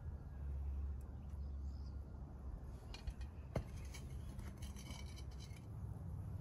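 Light metallic clinks of steel tongs and crucible being handled while molten aluminum is poured into ingot molds: a sharp click a little past halfway, with a run of faint ticks around it, over a low, steady rumble.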